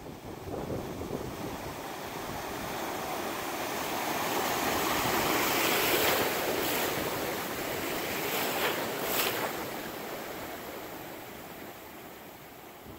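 Ocean surf washing in as foaming waves. The rush of water swells to its loudest about halfway through, with a few sharper splashes, then fades away.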